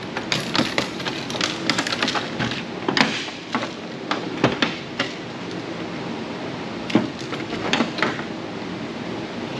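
Hand tools working a circuit board out of a plastic housing: a string of sharp clicks and knocks of metal on plastic, quick and bunched in the first two seconds, then scattered, over a steady low hum.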